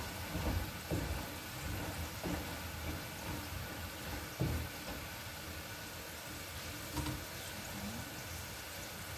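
Potato fries deep-frying in a pot of oil with a steady sizzle, stirred with a metal slotted spoon that knocks against the pot a few times, loudest about four seconds in.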